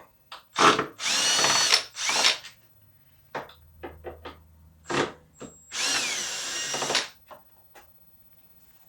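Cordless drill-driver running in several short bursts, backing out the screws that hold a motorcycle seat in, its whine winding up and down in pitch. Small clicks and taps of parts come between the runs.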